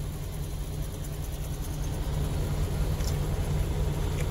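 Steady low hum of an idling semi truck's diesel engine, heard inside the cab, with a faint click or two near the end.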